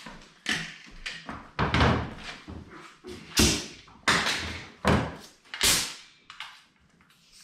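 Pneumatic brad nailer firing brads into wood, about six sharp shots at uneven intervals, some with a short tail of air after the shot.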